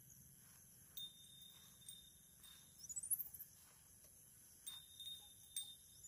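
Faint night ambience: a steady high insect chorus, with a few soft ticks and a short high rising chirp about three seconds in.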